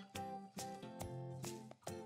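Background instrumental music: evenly paced notes, about two a second, over sustained pitched tones.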